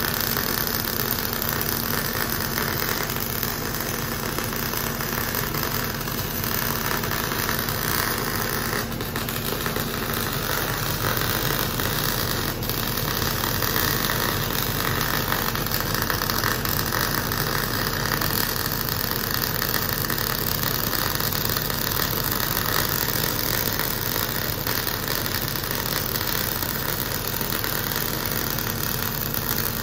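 Electric arc welding a steel plate onto a steel post: a steady, unbroken arc crackle.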